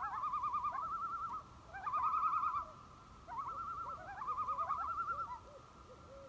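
Common loon tremolo calls: three bouts of rapid quavering, each lasting about a second or more, with short gaps between them.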